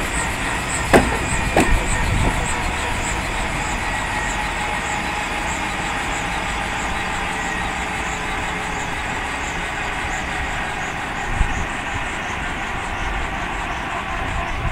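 AgustaWestland A109 Grand helicopter running on the ground with its main rotor turning: a steady turbine whine over rotor noise from its twin turboshaft engines, with a couple of brief knocks in the first two seconds.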